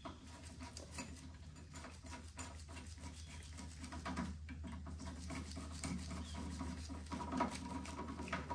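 Small clicks, taps and rustles of hands working on a snowblower carburetor, refitting the rubber primer line and handling plastic and metal parts, over a steady low hum.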